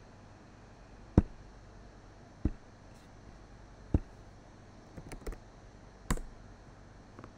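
Scattered sharp clicks from working a computer's mouse, trackpad and keys, about seven in all, roughly a second apart, the loudest about a second in and a quick pair about five seconds in.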